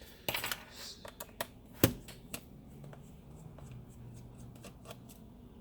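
Small clicks, taps and light scraping of hands handling the plastic underside of a laptop and its small removed parts, with one sharper click about two seconds in.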